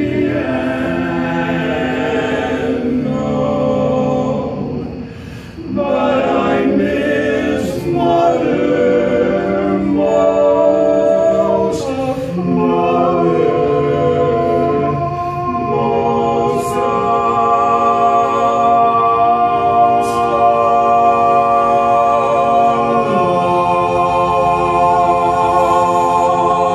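Barbershop quartet of four men singing a cappella in close four-part harmony, with a brief breath about five seconds in, then ending on a long, loud held chord.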